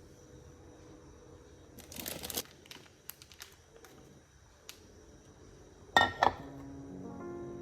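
Scattered light clicks and clatter of small objects being handled, with a louder double clink about six seconds in. Background music starts near the end.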